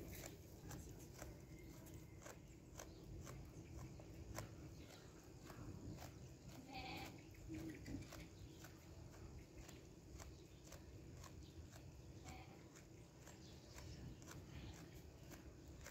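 A sheep chewing close up: a faint, steady run of clicking and grinding from its teeth, about two or three clicks a second. A brief faint call cuts in about seven seconds in.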